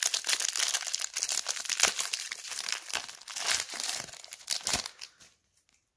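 Foil wrapper of a trading card booster pack being torn open and crinkled: a dense crackling with sharp crackles, dying away about five seconds in.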